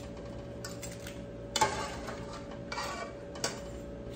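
A few short clinks and knocks of kitchen utensils against a steel pot and dishes, the loudest about one and a half seconds in, over a steady faint hum.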